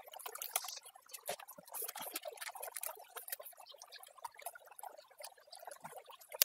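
Water sloshing and trickling in a plastic gold pan held in a shallow creek as material is washed over its riffles. Many small, irregular splashes and drips.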